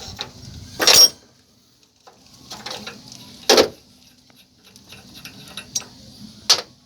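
Metal tools and parts clinking as a 21 mm wrench works the fan-belt pulley nut on a VW Kombi's air-cooled engine, with three sharp metallic knocks about a second, three and a half seconds and six and a half seconds in, between lighter clicks.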